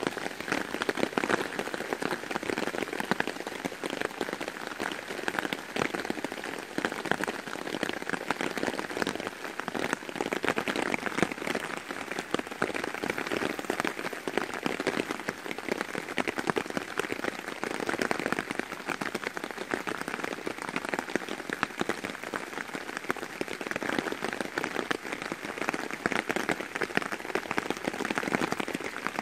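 Heavy rain, a proper downpour, drumming steadily on a hammock tarp overhead, a dense patter of countless drops.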